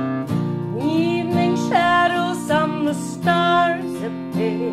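Acoustic guitar strumming chords at an even pace, with a woman's wordless singing gliding over it in several short phrases from about a second in.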